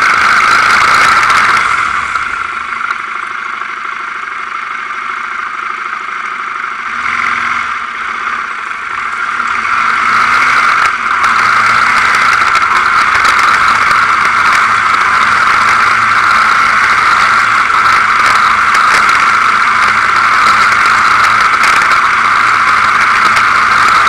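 Quad bike's engine running as it rides along a dirt forest track. It eases off for several seconds about two seconds in, then picks up again and holds steady.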